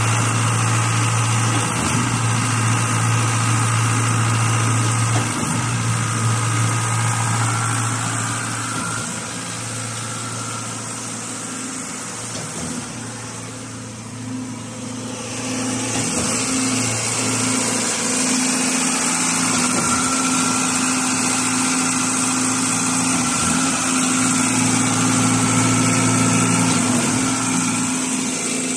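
Diesel engine of a trailer-mounted concrete pump running steadily with an even hum. It grows quieter for a few seconds midway, then comes back to full level.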